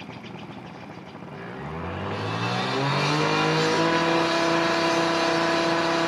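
A motor engine revs up, its pitch climbing from about a second and a half in, then runs loudly at a steady speed. A bird's fast trill fades out at the start.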